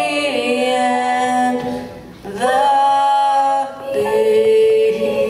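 A woman and a boy singing a duet into handheld microphones, holding long notes, with a short break for breath about two seconds in.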